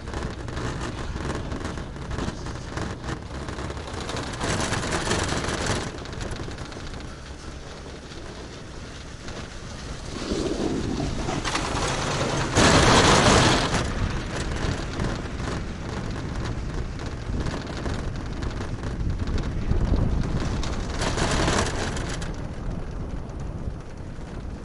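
Riding a Taihei Sakudo high-speed detachable quad chairlift: steady running noise, with a rumbling rattle three times as the chair passes over the sheaves at a lift tower. The loudest starts suddenly about halfway through.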